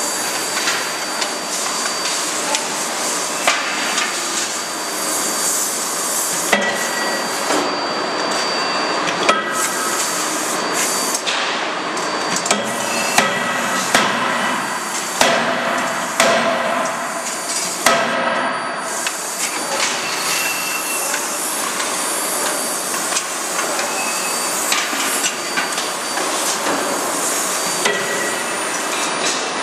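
Hydraulic forging hammer striking, its blows coming at uneven intervals about one every second or two, over a steady hiss of running machinery.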